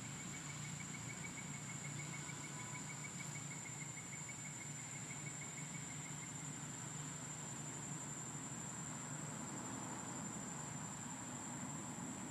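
Steady high-pitched drone of forest insects. A faster pulsing trill at a lower pitch runs for the first six seconds or so, over a faint low hum.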